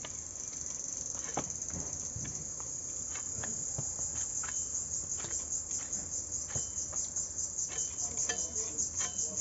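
Insects chirping steadily in a high, pulsing drone, with scattered sharp scrapes and clicks of hilsa fish being scaled and cut against bonti blades.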